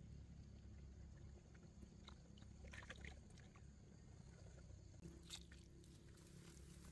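Faint water sloshing with a few small splashes and knocks, in a cluster about two to three seconds in and again just after five seconds, over a low steady rumble.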